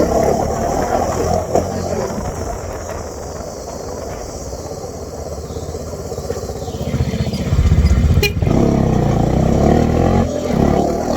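Bajaj Dominar 400 motorcycle's single-cylinder engine running; it eases off in the middle, then gets louder again about seven and a half seconds in, with one sharp click just after.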